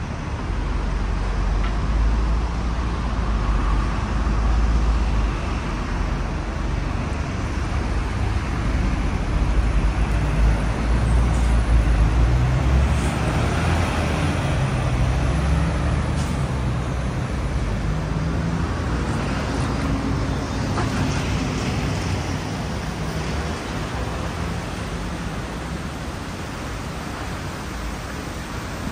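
City road traffic: car and bus engines running and passing, with a steady low rumble and a thin high whine about halfway through.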